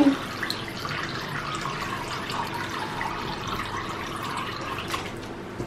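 Water streaming off a soaked plush toy lifted above a plastic tub, trickling and dripping steadily back into the water below.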